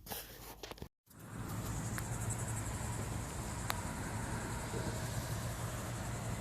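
Outdoor ambience that starts after a brief cut about a second in: the steady hum of distant road traffic, with insects chirring in a steady high-pitched band over it.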